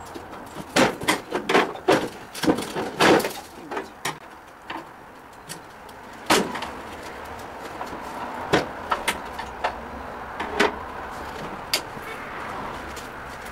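Metal clanking and knocking as a barbecue grill's sheet-metal cooking box is pried and worked loose from its stand, where it is stuck on rusty screws and a seam. A quick run of bangs in the first few seconds, then single knocks every second or two.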